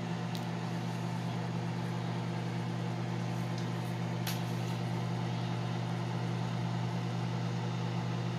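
Microwave oven running: a steady electrical hum with two faint clicks, about half a second in and about four seconds in.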